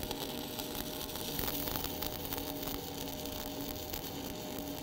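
Stick (SMAW) welding with a 1/8-inch 7018 electrode on plate during the hot pass: the arc burning as a steady hiss with scattered small crackles.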